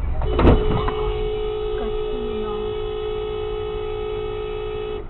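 A vehicle collision, with one sharp impact about half a second in. A steady humming tone starts at once, holds unchanged for about four and a half seconds and cuts off suddenly.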